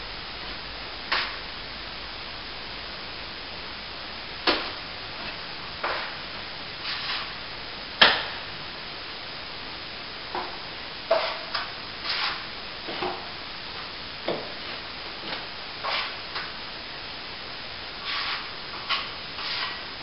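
Small plastering knife scraping and tapping as cornice cement is worked into the joint of a plaster archway moulding: irregular short scrapes and knocks, the loudest about eight seconds in, over a steady hiss.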